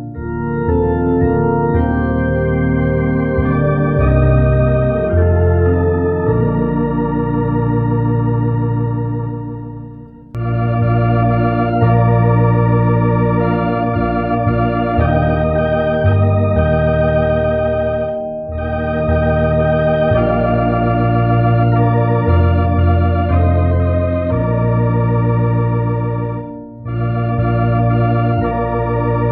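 Organ playing slow, sustained chords with a moving bass line, breaking off briefly about ten seconds in and again near the end.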